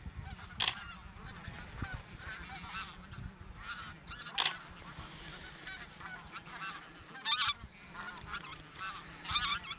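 A flock of wild geese calling, many honks overlapping continuously, with a few louder, sharper calls standing out now and then.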